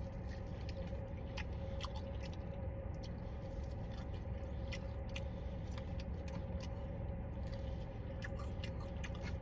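Person biting and chewing a fried chicken wing, with scattered short clicks from the mouth. The eater says the wing has little crunch because it is not fried hard enough.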